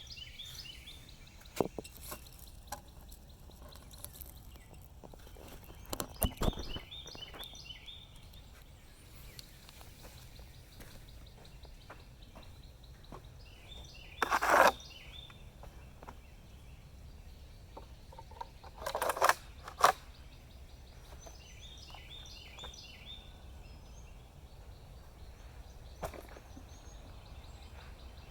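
Outdoor background with a bird singing short runs of quick repeated chirps several times. Two brief, louder noises break in around the middle, a second or so apart.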